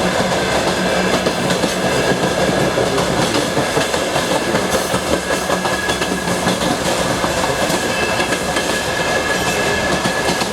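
Passenger railway carriage wheels clicking over rail joints at speed, with the steady rumble of the train running, heard from inside the carriage. A steady high hum runs under it.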